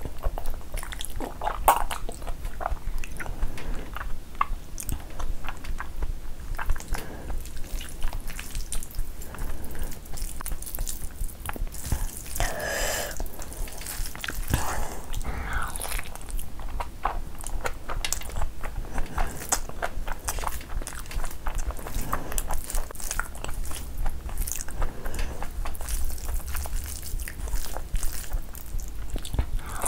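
Close-miked wet chewing and lip-smacking of a mouthful of rice and curry, with many quick clicks throughout.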